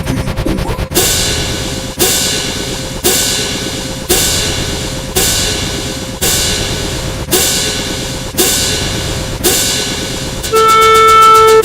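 A montage of sound effects. A fast rattle of clicks, then a sharp crashing hit that rings out and repeats about once a second, nine times. Near the end it switches to a loud, steady electronic tone with a couple of short breaks.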